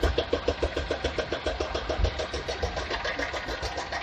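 Hong Kong double-decker tram running along its street tracks, heard from on board: a fast, even rattling pulse, about nine beats a second, over a low rumble.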